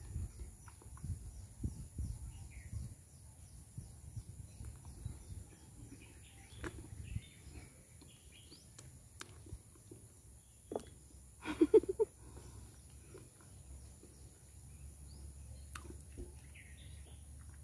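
Quiet close-up eating sounds of soft, ripe honey jackfruit pulp, picked up by a lapel mic: soft chewing, sucking and small lip smacks, with one louder short mouth sound about twelve seconds in. Faint bird chirps in the background.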